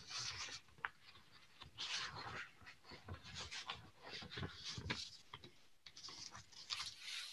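Faint, irregular rustling of paper sheets being handled close to a laptop or webcam microphone, with a few small clicks and knocks.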